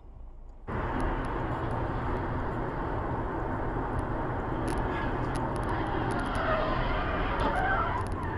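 Steady road and wind noise of a car driving at highway speed, heard from a dash camera inside the cabin, starting abruptly under a second in after a near-quiet moment, with faint small clicks scattered through it.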